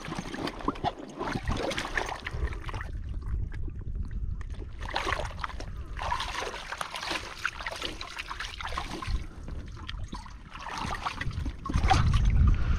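Water splashing and trickling in uneven spells, with a stronger low rumble near the end.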